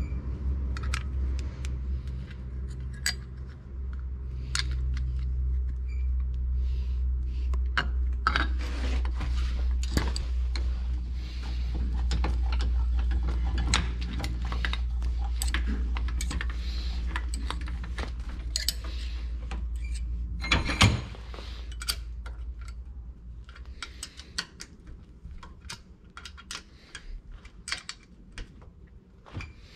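Metal clinking and clattering of a wrench on the nut and lever of a Lombardini engine's throttle control assembly as the lever is tightened onto its shaft, with one louder metal clank about two-thirds of the way through. A steady low hum runs underneath and fades out at about the same point.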